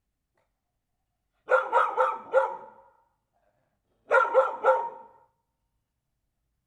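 A dog barking in two quick volleys: four sharp barks about a second and a half in, then three more about four seconds in.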